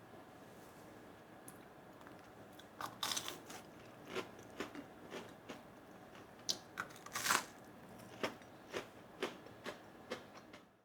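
Crisp batter-fried flower fritters being bitten into and chewed: a string of irregular sharp crunches starting about three seconds in, the loudest around seven seconds in.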